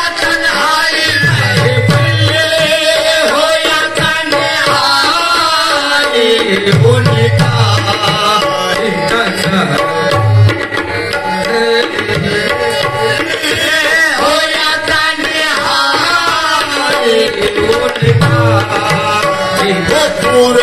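Qawwali music: harmonium chords and hand-drum strokes under voices singing into microphones, with deep drum strokes coming every few seconds.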